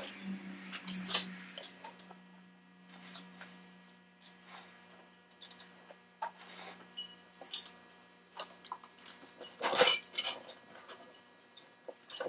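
Brass lamp-head parts clinking and scraping against metal as they are handled and turned during soldering, in scattered irregular knocks, the loudest clatter about ten seconds in. A low steady hum fades away over the first few seconds.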